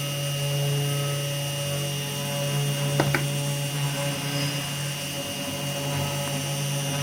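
Small hobby CNC router running steadily, its spindle motor and stepper motors giving a continuous hum with a few steady whining tones; two quick clicks about three seconds in.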